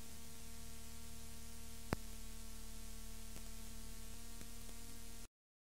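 Steady hiss and electrical hum of an old recording, with one short click about two seconds in; the sound cuts off suddenly a little past five seconds.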